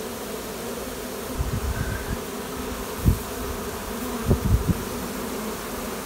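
Steady buzzing hum of a honey bee swarm, many bees flying around the hive box the swarm is being hived into. A few low thumps come through it between about one and a half and five seconds in.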